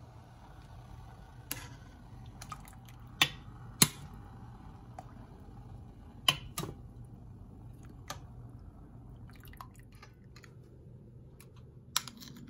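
Metal spoon clinking against a stainless steel pot while tomatoes are scooped out of water, with wet dripping sounds between the sharp clinks, over a low steady hum. Near the end a knife taps once on a cutting board.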